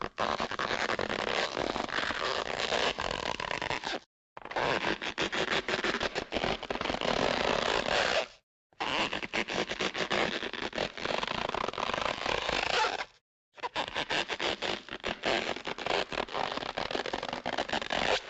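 Four cartoon sound effects in a row, each about four seconds of dense crackling, scraping noise full of rapid clicks, separated by short gaps of silence.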